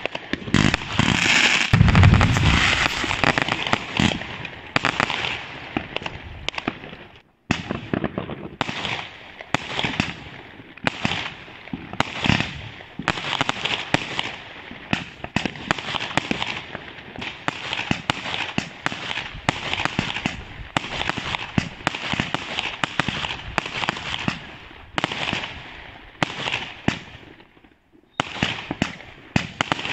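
Aerial fireworks going off in quick succession, a dense run of bangs and crackling stars, with the loudest, deepest bang about two seconds in. The crackling breaks off briefly twice, about seven seconds in and near the end.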